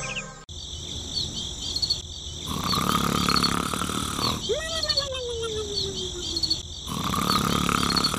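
Cartoon snoring sound effect: a rasping in-breath, then a long falling whistle on the out-breath, then another in-breath near the end. Behind it, a steady bed of chirping crickets.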